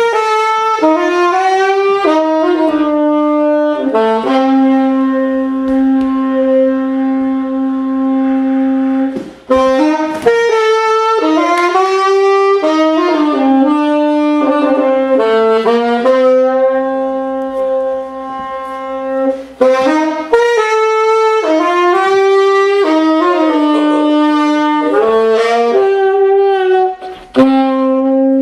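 Saxophone-led jazz music: a melody of long held notes and quicker runs, with short breaks between phrases.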